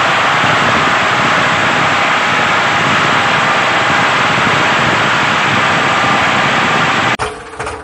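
Steady, loud engine-like running noise with no clear rhythm. Near the end it cuts off abruptly and gives way to a quieter, choppy, pulsing sound.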